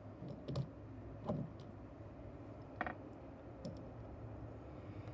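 A few separate light clicks and taps as small die-cast toy trucks are handled and set in place.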